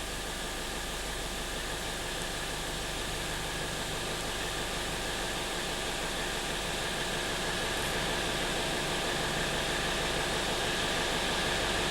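Steady machinery hum and hiss of a ship's engine room, with several constant tones over it, growing slowly louder.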